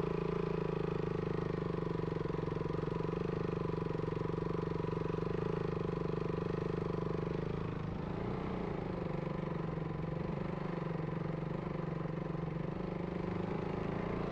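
Motorcycle engine running steadily at low revs, with a slight change in pitch about eight seconds in.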